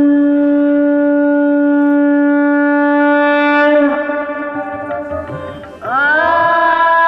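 Conch shell (shankha) blown to herald a king's entrance. One long, steady blast fades about four seconds in, and a second blast near the end slides up in pitch before holding.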